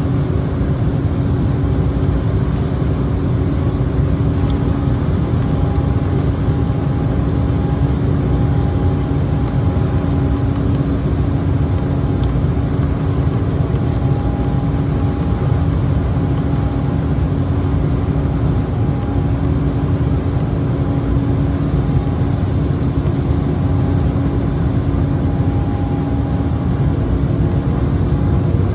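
Cabin noise of an Embraer E190 airliner in flight: the steady drone of its GE CF34 turbofan engines and rushing air, with a few steady hum tones running through it.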